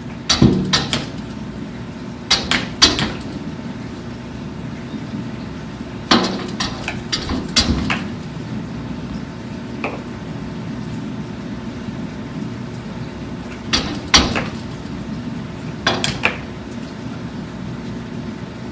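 A Bernese mountain dog's claws tapping and scraping against a glass sliding door from outside, in short bursts every few seconds: the dog pawing at the door to be let in.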